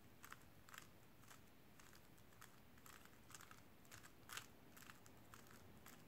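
Faint, quick plastic clicks of a stickerless 3x3 speedcube, a MoYu WeiLong WR M, being turned face by face through the Y-perm algorithm: about a dozen turns at an uneven pace of roughly two a second, one louder click a little after the four-second mark.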